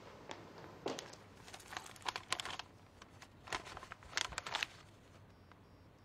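Sheets of paper rustling as the pages of a stapled contract are handled and leafed through, in several short bursts.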